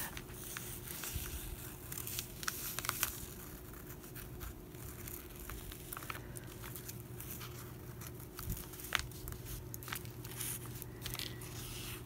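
Felt-tip marker scratching along fabric as it traces around a paper pattern, with light paper rustles and small clicks from the sheet being held and shifted. A faint steady hum sits underneath.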